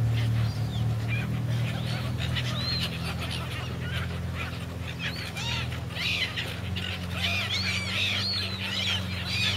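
A flock of silver gulls calling, many short arched calls overlapping and growing busier about halfway through, over a steady low hum.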